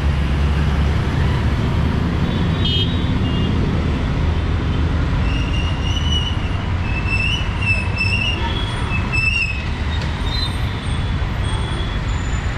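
Busy city road traffic of motorbikes, auto-rickshaws and cars rumbling past steadily. Several short, high vehicle horn toots sound around the middle.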